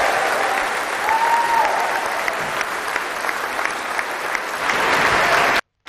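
Large audience applauding steadily as a guest walks on stage. The sound cuts out for a moment near the end.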